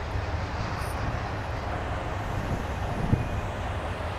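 CN freight train cars rolling past with a steady low rumble of wheels on rail, and a single brief thump about three seconds in.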